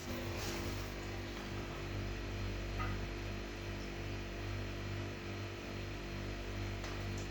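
Steady low hum with a faint short chirp about three seconds in.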